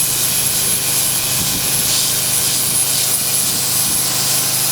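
Power grinder running steadily with a constant high whine as it grinds a cured vinyl concrete patch in a driveway crack down flush with the surface.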